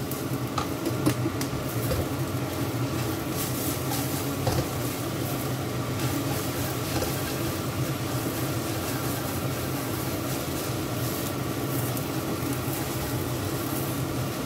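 Papaya leaves and anchovies sizzling in a non-stick frying pan while being stirred and scraped with a spatula, with small clicks of the spatula against the pan. A steady low hum runs underneath.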